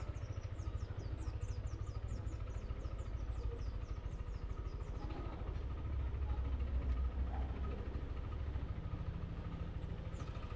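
Yamaha Aerox v2 scooter's single-cylinder engine running steadily, growing louder and deeper for a couple of seconds past the middle. Over it, a quick run of high chirps sounds through the first half.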